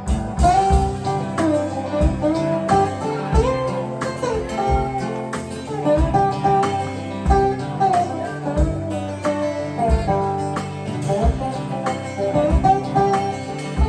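Instrumental break of a live country song: acoustic guitar playing a moving melody line over a drum kit, with steady kick drum beats.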